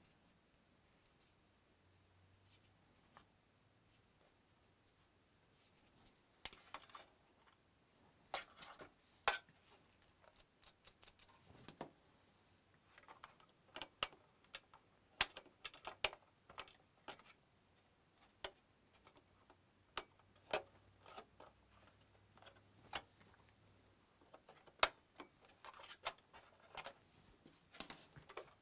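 Scattered small clicks, taps and rustles of hands handling a PS4's plastic chassis pieces and an internal cable, beginning about six seconds in.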